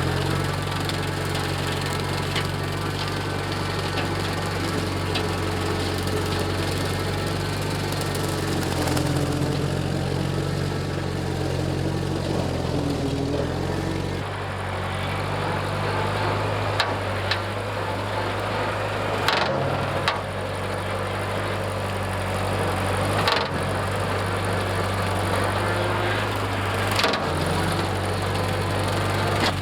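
Tractor engine running steadily while pulling a brush hog (rotary mower) through weeds, cutting and mulching them. The engine's tone shifts about halfway, and a few sharp knocks come in the second half.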